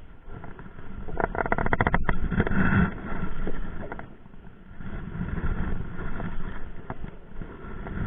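Kamikaze Gorgon baitcasting reel being handled and cranked close to the microphone. There is a fast run of clicks about a second in and further handling knocks, over a low steady rumble.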